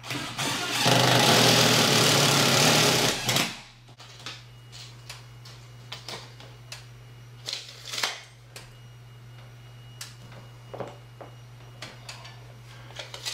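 Yellow DeWalt cordless driver running for about two and a half seconds as it drives a screw into a ceiling projector mount, then stopping. Scattered small clicks and knocks of hand work on the mount follow.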